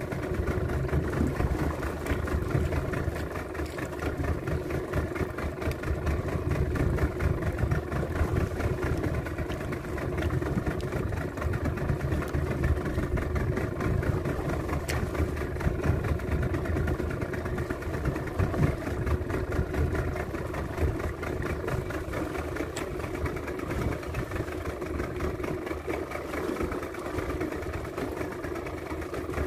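Fishing boat's engine running steadily, a constant low drone with no change in speed.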